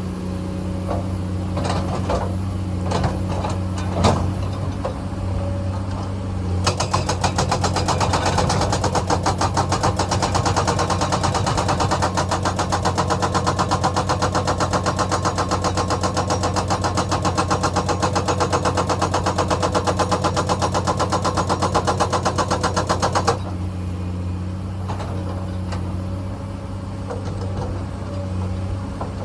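Komatsu hydraulic excavator's diesel engine running steadily, with a few sharp knocks early on. After several seconds a rapid, even clatter of many strokes a second starts, runs for about sixteen seconds, and stops abruptly.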